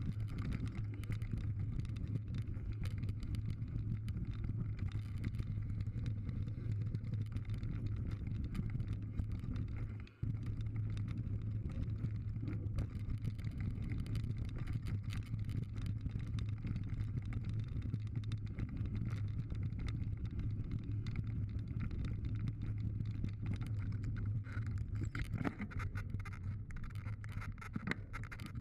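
Mountain bike riding fast down a dirt and gravel trail, heard from a camera mounted on the bike: steady wind rumble and tyre noise on the loose surface, with frequent small rattles and clatters from the bike. The sound drops out for a moment about ten seconds in.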